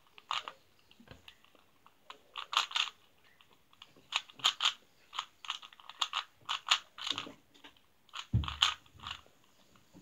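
A Rubik's cube being turned quickly by hand, its plastic layers clicking and clacking in irregular quick runs. There is one dull thump about eight seconds in.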